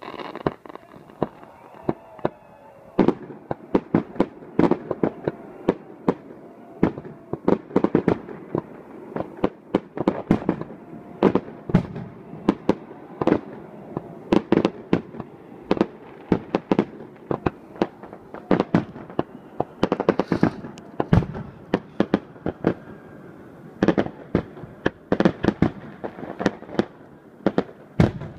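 Aerial fireworks going off in a rapid, irregular barrage of sharp bangs and pops, sparse at first, then dense from about three seconds in.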